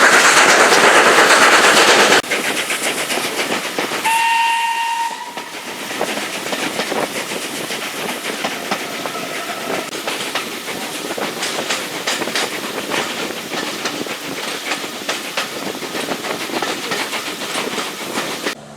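Heritage steam train on the line. A loud rush of noise for the first two seconds gives way to a short steam whistle about four seconds in, then a steady clatter of wheels over rail joints.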